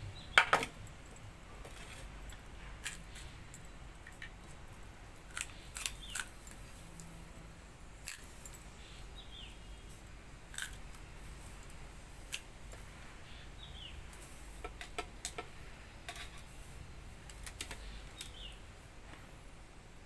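Clink of a steel plate set down on the table about half a second in, then scattered small clicks and clinks of steel dishes and hand-eating, each short and sharp.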